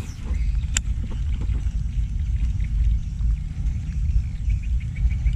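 Low rumble of wind buffeting the microphone, with one sharp click about a second in from the baitcasting reel as it is handled, then a few faint ticks as the reel is cranked to bring the lure back.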